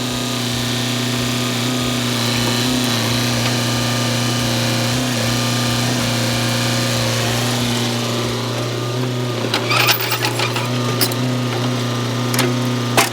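Excavator's diesel engine and hydraulics running steadily while it splits firewood, with a few sharp cracks about ten seconds in and again near the end.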